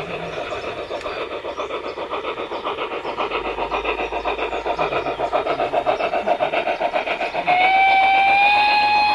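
Model steam locomotive's sound decoder playing rapid, even steam chuffs through its onboard loudspeaker as the garden-scale train runs. Near the end a steady steam whistle starts, sliding up slightly as it begins, and becomes the loudest sound.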